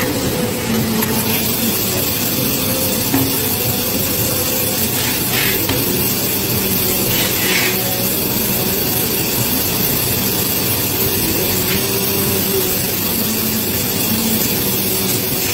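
Steady running hum and hiss of a Polar paper guillotine's machinery, with two brief hisses about five and seven seconds in.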